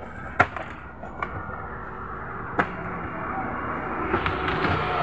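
Several sharp knocks and clicks of a CRT television's plastic rear cabinet being handled, scattered over steady background noise.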